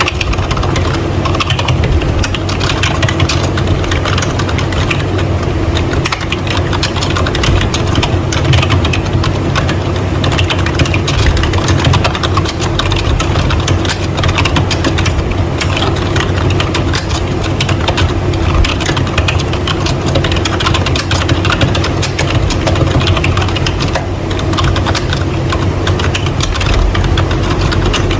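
Fast, continuous typing on a membrane keyboard: a dense, unbroken clatter of key presses over a steady low hum.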